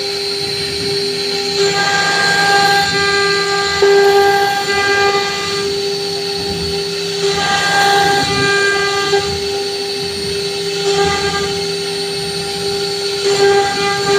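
CNC router spindle running at high speed with a steady high whine while its bit carves a relief design into a fibreboard (MDF) panel. The whine and the cutting hiss come and go every few seconds as the bit moves along the design.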